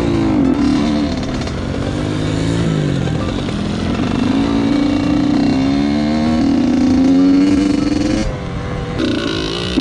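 Two-stroke dirt bike engine revving. The pitch dips, then climbs in a long steady rise from about four seconds in, drops sharply near the end, and comes back with quick up-and-down blips.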